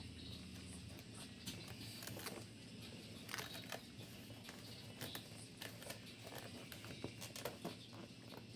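Faint, irregular crinkling and clicking from a snack being handled and eaten, with sharper clicks clustered through the middle and near the end.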